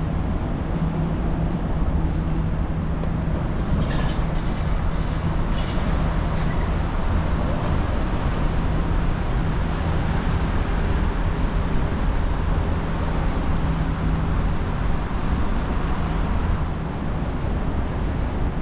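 Steady city road traffic noise: vehicles running past with a low engine hum, and a few faint clicks about four to six seconds in.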